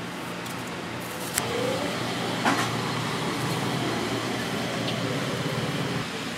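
A motor vehicle passing close by over steady street noise, swelling and then fading, with a sharp knock a little over a second in and another as it passes.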